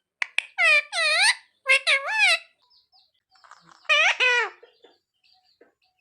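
Indian ringneck parrot vocalizing: a couple of quick clicks, then a run of short calls that waver up and down in pitch over the first two and a half seconds, and one more call about four seconds in.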